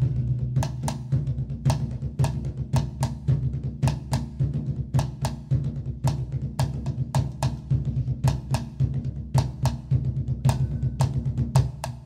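Music with drums: quick, uneven drum hits over a steady low drone.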